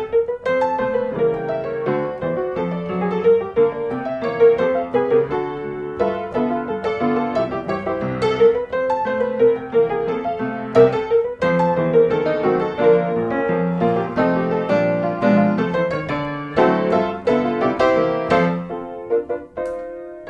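Background piano music, notes played in a quick, continuous run.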